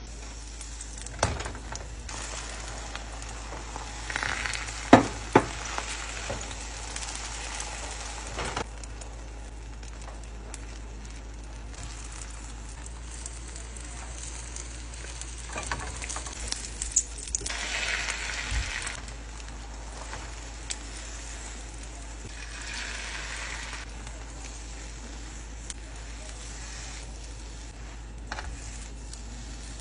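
Egg sizzling in a nonstick frying pan, louder in a few stretches, with occasional sharp clicks and taps of a spatula and wooden chopsticks against the pan as the omelette is turned and rolled.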